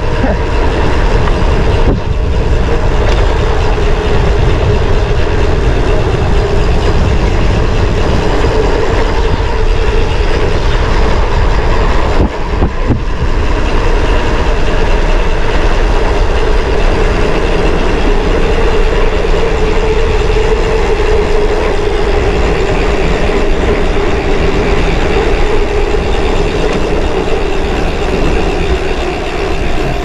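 Mountain bike coasting fast downhill, with loud, steady wind rush on the camera microphone and the rumble of the tyres and bike over the trail.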